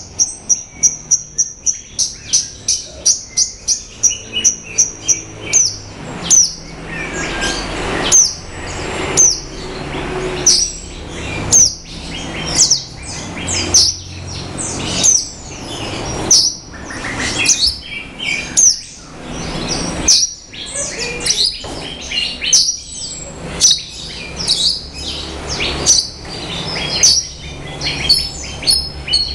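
Javan bush lark (branjangan) singing loudly. It opens with a quick series of the same high note repeated, then about five seconds in breaks into a varied, continuous song of sharp high chirps mixed with harsher, rougher notes.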